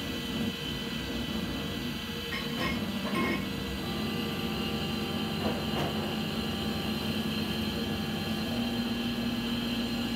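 Desktop laser engraver running while it engraves a wooden printing block: a steady whir from its blower fan and motors, with a few short whines about two and a half to three seconds in and again near six seconds as the laser head moves.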